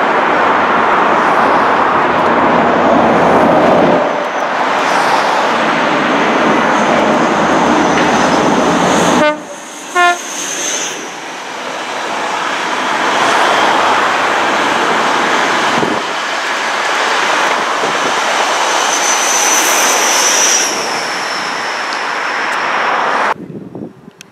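High Speed Train with Class 43 diesel power cars passing close by at speed: steady engine and wheel noise, with one brief horn toot about ten seconds in. The noise drops away sharply near the end.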